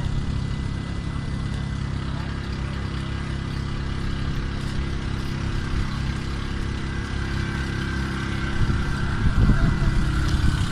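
Vehicle engine idling steadily. Near the end a louder, irregular rumble comes in on top.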